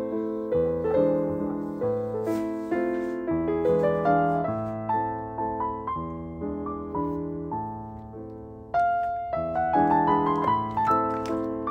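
Background piano music: notes are struck one after another, and each fades away after it is struck.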